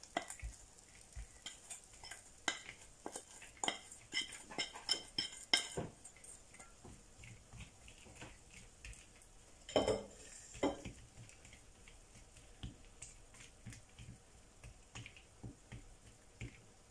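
Metal spoon scraping and tapping caramel-coated cashews out of a small metal saucepan and spreading them over a silicone baking mat: a run of quick clicks and scrapes, a louder clatter about ten seconds in, then sparser light taps.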